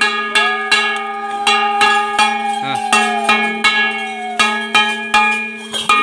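A brass plate gong (ghanta) struck in a steady rhythm, about three ringing strokes a second. Steady held tones sound underneath, and a long, slowly falling note fades out a little past four seconds in.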